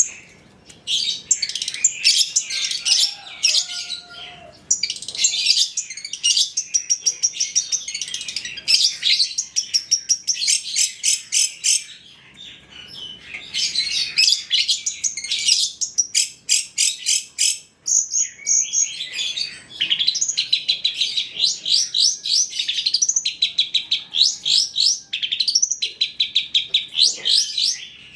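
Long-tailed shrike song: rapid runs of sharp, repeated chattering notes and fast trills, in varied phrases broken by brief pauses about twelve and eighteen seconds in. It is a master recording of a shrike in full song, packed with varied phrases.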